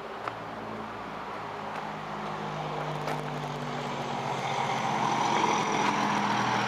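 A motor vehicle's engine running steadily and growing louder as it draws nearer.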